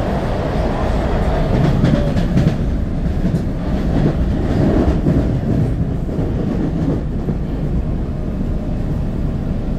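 A Washington Metro 3000-series railcar running at speed between stations, heard from inside the car: a loud, steady rumble of wheels on rail, with a few sharp clicks about two to three seconds in.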